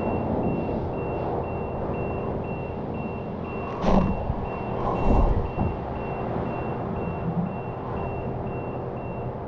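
Electronic warning beeper sounding a single high beep about twice a second, stopping shortly before the end, over a steady machine hum. Two louder bursts of noise come near the middle.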